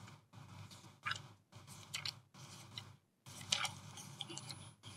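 Faint paper rustling and light clicks of Bible pages being turned to find a passage: a few short rustles, coming closer together near the end.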